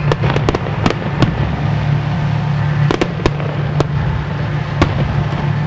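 Aerial firework shells bursting: a rapid cluster of sharp bangs in the first second or so, then scattered single reports about three, four and five seconds in, over a steady low hum.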